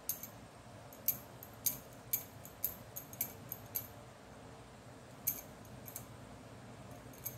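Light, soft ticks and rustles of wool yarn being wound round the fingers, about two a second at first, then sparser, over a faint steady room hum.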